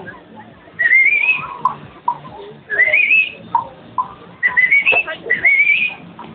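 Someone whistling loudly, in four short warbling phrases that each slide upward in pitch.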